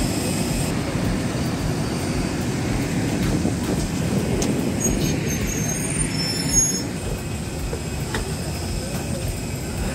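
Airport apron shuttle bus running with a steady low rumble, easing slightly in the last few seconds. A high whine cuts off about half a second in.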